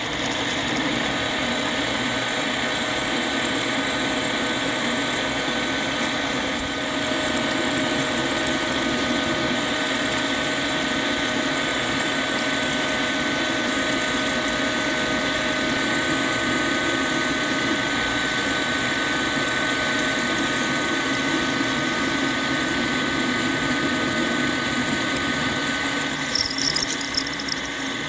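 Brown & Sharpe No. 2 milling machine running a 7/16-inch twist drill into a T-nut bar: a steady machine hum with held tones under the constant cutting noise of the drill, chips curling off. It grows a little louder about seven seconds in, and a few sharp crackles come near the end.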